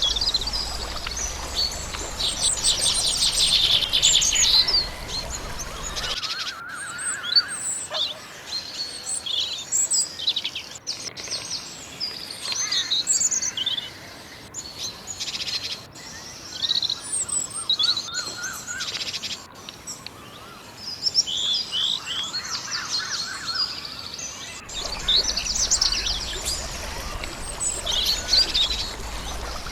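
Several songbirds chirping and singing at once, a dense mix of short, quick, high-pitched calls and trills. The background changes abruptly about six seconds in and again near the end, as one bird recording is cut to another.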